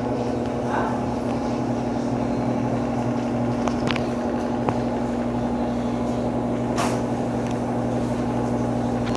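Washing machine running its intermediate spin: a steady motor and drum hum at an even speed, with a few brief ticks.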